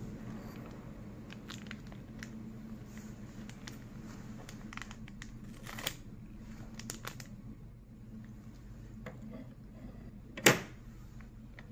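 Foil condom wrapper crinkling and being torn open in gloved hands, a run of short crackles and ticks, with one sharp loud knock near the end, over a steady low hum.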